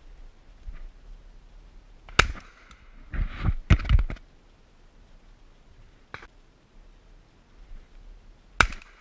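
Shotgun shots: a sharp shot about two seconds in and another near the end, with a cluster of heavier thumps between them.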